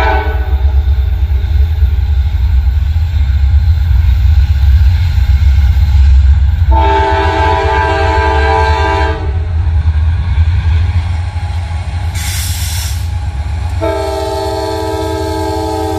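Diesel freight locomotives passing close, their engines making a steady low rumble, while the lead unit sounds its multi-note air horn in long blasts. One blast ends about half a second in, a second of about two and a half seconds comes before the halfway point, and a third starts near the end. A brief hiss comes just before the last blast.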